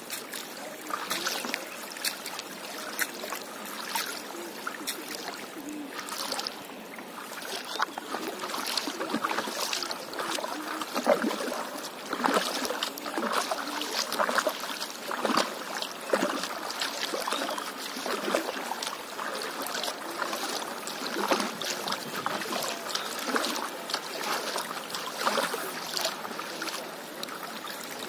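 Stand-up paddleboard being paddled across calm sea water: the paddle blade dipping and pulling through the water about once a second, with splashing and trickling water around the board.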